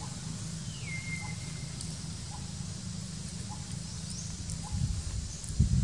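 Outdoor bird calls: about a second in, one whistled note slides down and then holds, and short faint chirps repeat about once a second, over a steady low rumble. Louder low bumps come near the end.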